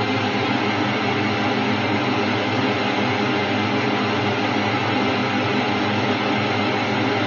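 A steady, dense drone of hiss and hum, part of a dark ambient film score.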